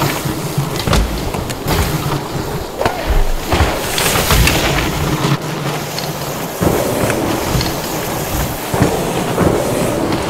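Mountain bike being ridden fast downhill on a dirt trail: steady tyre noise over the ground with frequent knocks and rattles from bumps and landings.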